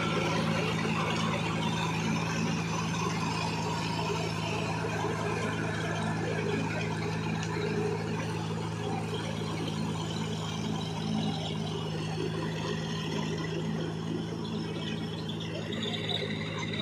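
Diesel engines of a John Deere 5045D and a Massey Ferguson 246 4wd tractor running steadily while pulling rotary tillers through wet paddy mud, with a constant low engine hum that slowly fades.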